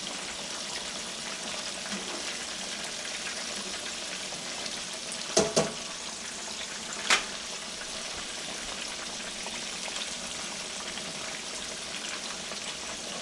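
Pieces of grass carp deep-frying in hot oil, a steady sizzle throughout. About halfway through come three short sharp clicks, two close together and one a moment later.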